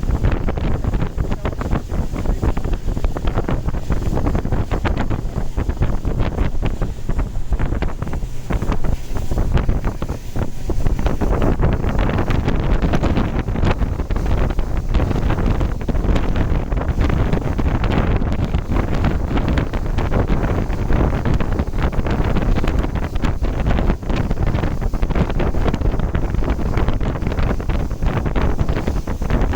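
Wind buffeting the microphone aboard a boat underway, over a steady low rumble of the boat and water.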